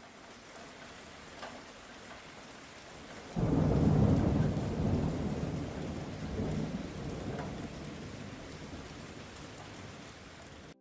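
Steady rain falling, then a thunderclap about a third of the way in whose low rumble fades slowly; the sound cuts off abruptly at the end.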